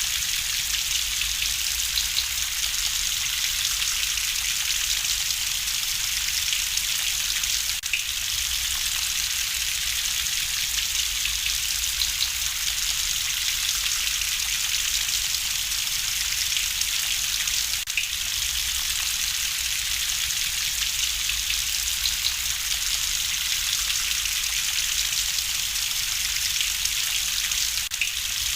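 Steady rain hissing, with a low rumble underneath and a few faint pops that fit a crackling fireplace. The level dips briefly three times, about ten seconds apart.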